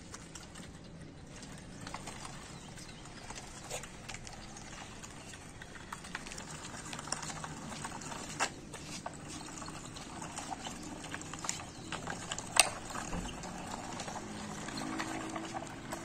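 Wooden wheels of a small homemade toy tractor and brick-loaded wooden trolley rolling over rough concrete, with scattered clicks and knocks. One sharp knock about twelve seconds in is the loudest.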